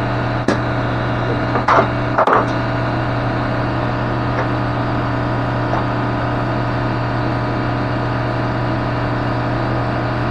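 Steady machine hum with a hiss over it, broken by three short, sharp knocks within the first two and a half seconds.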